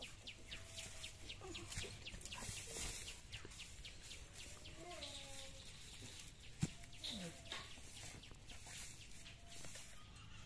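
Chickens clucking faintly, with short calls, over a rapid run of thin high chirps. A single sharp tap comes about six and a half seconds in.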